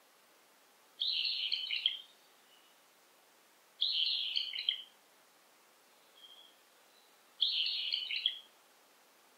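A songbird singing the same short, busy song phrase three times, each about a second long and a few seconds apart, with faint short notes in between.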